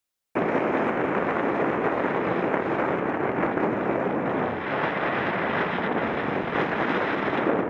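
Strong wind rushing over a bike-mounted camera's microphone while cycling, a dense steady roar that starts abruptly about a third of a second in.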